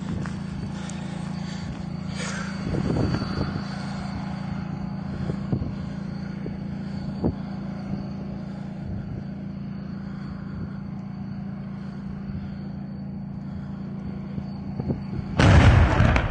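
A tank's diesel engine running with a steady low drone, with a few sharp knocks. About a second before the end comes a sudden loud blast: the tank's main gun firing.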